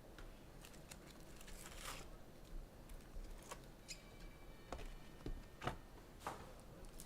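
Faint rustling, tearing and light clicks of trading-card packs and cards being handled and opened by hand.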